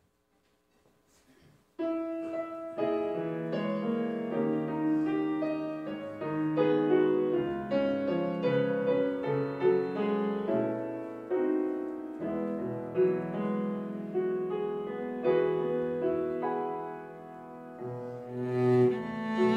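Grand piano and cello playing a slow instrumental introduction in sustained notes and chords, starting suddenly about two seconds in after near silence.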